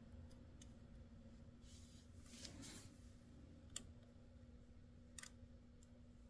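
Near silence with a faint steady hum, a soft rustle, then two light clicks about a second and a half apart as the plastic distributor rotor is handled and pressed onto the shaft of a Ford three-cylinder tractor's distributor.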